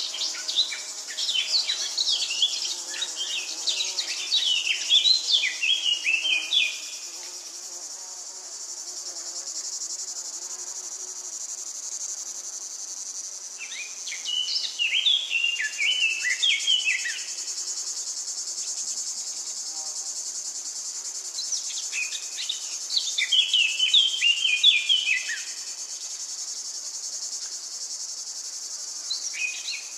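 A steady high insect chorus, with a songbird singing quick, varied phrases of a few seconds each, four times with pauses between.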